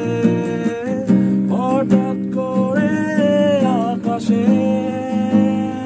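Background music led by acoustic guitar, with a melody line that glides between notes in the middle.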